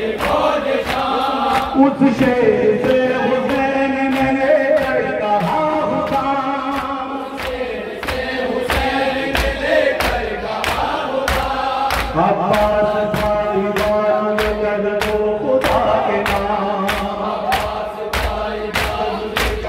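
A noha sung through a microphone, with a group of men chanting along, over the regular slaps of hands beating on chests (matam) at about two a second.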